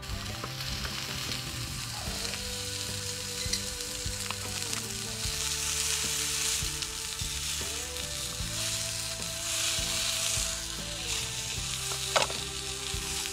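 Burger patty sizzling in a frying pan over a wood fire, the high hiss swelling and easing. A single sharp metal clink, the spatula against the pan, near the end.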